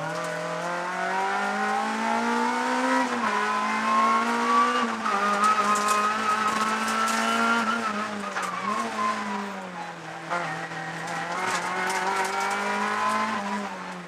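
Honda Civic rally car's four-cylinder engine, heard from inside the cabin, being driven hard up through the gears: its pitch climbs, drops sharply at quick upshifts about three and five seconds in, sags briefly around nine seconds, then climbs again.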